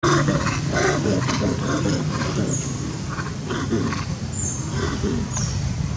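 Long-tailed macaques making short, rapid calls, about two or three a second: a frightened or agitated vocalization.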